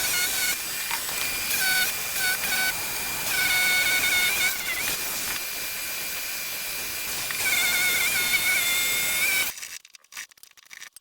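Power tool running under load while cutting into a workbench, with a high whine that rises and drops away several times, then shutting off suddenly near the end.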